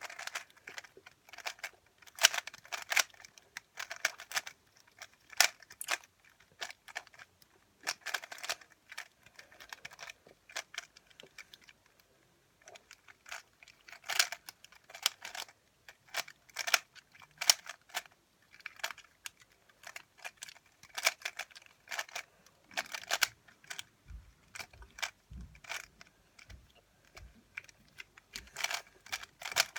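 Rubik's cube being turned fast in the hands: quick clusters of plastic clicking and clacking as the layers snap round, in irregular bursts with short pauses between them.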